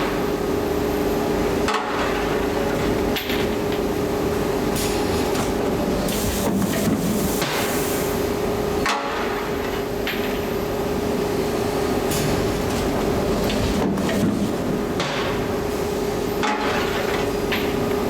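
Machinery running with a steady hum at one pitch, broken by sharp metallic knocks and clanks every second or two.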